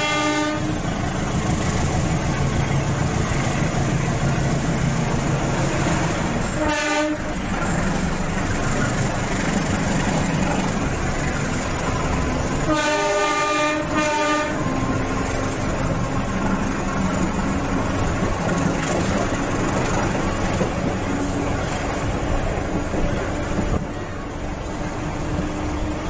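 Locomotive air horn sounding over the steady rumble and clatter of a moving passenger train, heard from a carriage window. There are three warning blasts: a short one at the start, another brief one about seven seconds in, and a longer one lasting about two seconds around thirteen seconds in.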